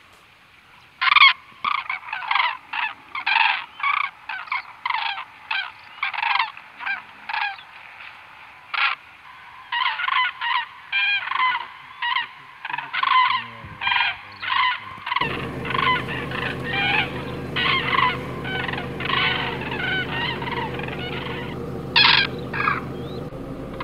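Common cranes calling: loud, repeated trumpeting calls, one or two a second, overlapping at times. About two-thirds of the way through, a steady low hum starts beneath the calls.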